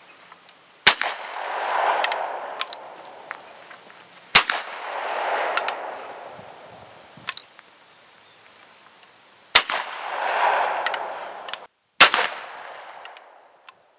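Four shots from a 20 gauge single-shot Remington rolling block shotgun, each a sharp report followed by a rolling echo lasting about a second and a half, with a few lighter clicks between the shots.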